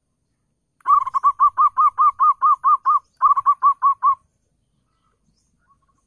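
Zebra dove cooing: a fast run of short notes, about six a second, for about three seconds, with a brief break partway through.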